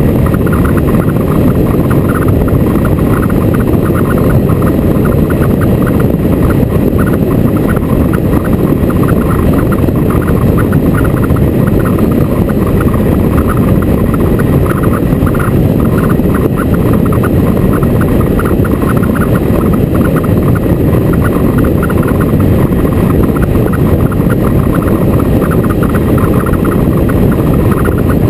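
Motorcycle on the move at a steady pace: constant wind and road noise over the microphone, dense and low, with no let-up.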